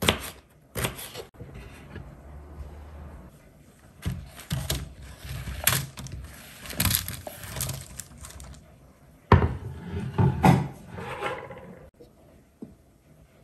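Cubed eggplant knocked and scraped off a wooden bamboo cutting board onto a parchment-lined baking tray, a run of wooden knocks and clattering pieces. Two louder knocks come about two thirds of the way through.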